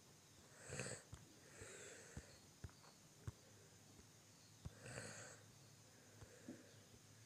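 Near silence with two faint breaths close to the microphone, about a second in and again about five seconds in, and a few faint ticks.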